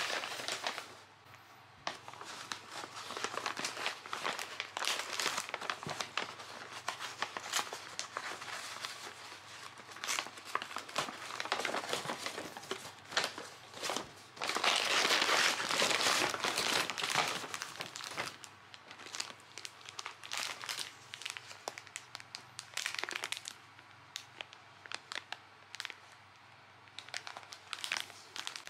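Kraft-paper shopping bag rustling and crinkling as hands open it and rummage inside, in uneven bursts of crackling paper, loudest about halfway through. Near the end, plastic-wrapped cake packets crinkle as they are lifted out.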